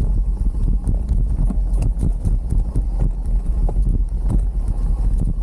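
Full-suspension mountain bike rolling down a rough dirt trail: a constant irregular clatter of knocks and rattles as the wheels hit bumps, over a steady low rumble.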